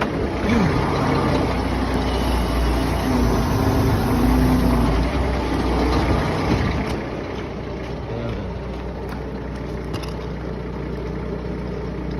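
Heavy equipment's diesel engine running under load for the first several seconds while its hydraulics raise the machine a little. It then settles to a steadier, quieter run.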